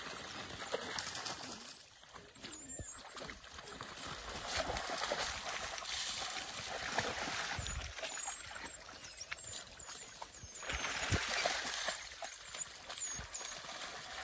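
African wild dogs splashing and wading through a shallow waterhole, water sloshing and dripping in uneven surges. Short high chirps come through in the second half.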